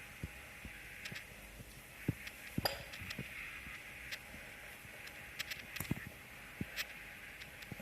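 Scattered light metallic clinks and taps of steel parts being handled, over a faint steady background hum.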